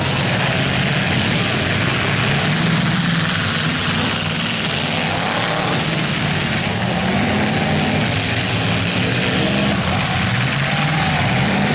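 Several demolition derby cars' engines running at once, their pitch rising and falling as they rev, over a steady dense noise with no clear crash impacts.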